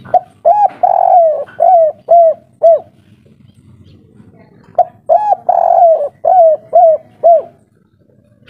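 Spotted dove cooing two phrases, a few seconds apart. Each phrase opens with a couple of short coos and one long drawn coo, then ends in three short coos, the 'kuk 3' pattern.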